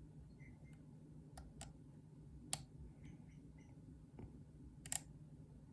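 Faint, scattered light clicks of a lock pick and tension wrench working the pins inside a pin-tumbler lock core, about five or six sharp ticks a second or so apart, with a double click near the end.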